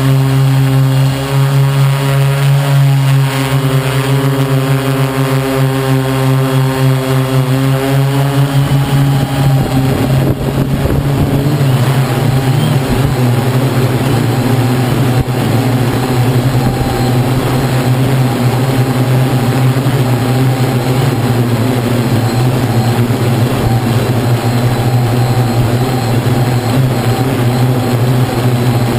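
A multirotor drone's electric motors and propellers whir steadily, heard close up from a camera mounted on the frame. About nine seconds in, the even stack of motor tones shifts and turns rougher and less steady as the throttle changes.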